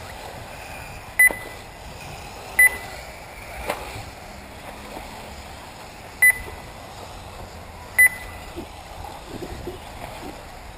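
Short, sharp electronic beeps from a race lap-timing system, four at uneven intervals, each marking an RC buggy crossing the timing loop.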